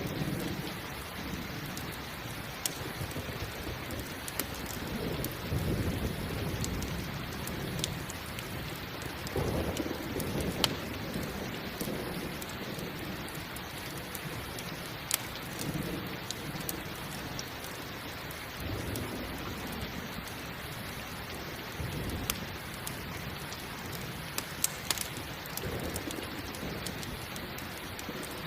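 Steady heavy rain with low rolls of thunder swelling and fading about half a dozen times, the strongest near the middle. Scattered sharp crackles pop over the rain, in keeping with a crackling campfire.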